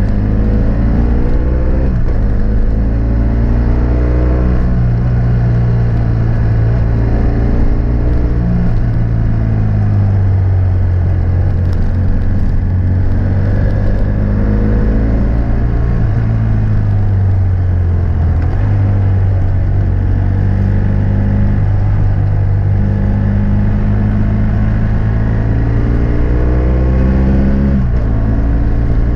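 2006 BMW F800S parallel-twin engine through a GPR Furore Nero exhaust with dB-killer, under way on the road. Its note rises and falls as the bike accelerates and eases off, with several gear changes along the way.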